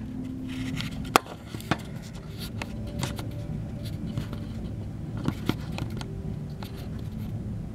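Handling noise as the camera is set down on a workbench and things are moved about: scattered light clicks and knocks, the sharpest about a second in, over a steady low room hum.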